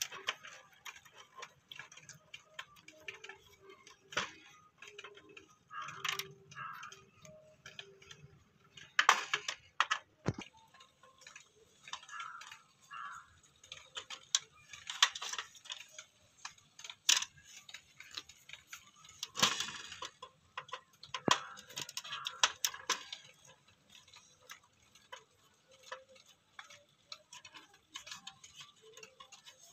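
Screwdriver and fingers working on a cassette radio's plastic cabinet and circuit board: irregular clicks, taps and short scrapes of plastic and metal.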